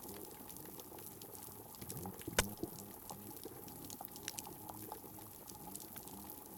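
Underwater hydrophone recording of a reef's snapping-shrimp crackle: a dense, irregular scatter of sharp clicks and pops from pistol shrimp snapping their claws, with one much louder snap about two and a half seconds in. Faint low wavering sounds run underneath.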